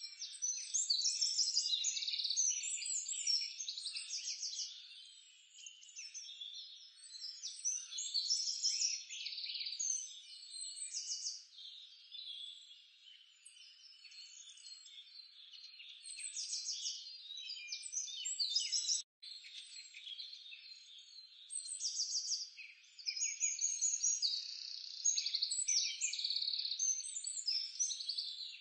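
A dense chorus of small birds chirping and frogs calling in fast trills, all high-pitched, swelling and fading every few seconds.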